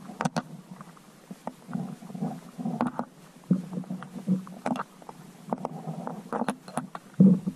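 Muffled, irregular underwater rumbling picked up by a GoPro inside its waterproof housing, lowered into a flooded well. Several sharp knocks are spread through it.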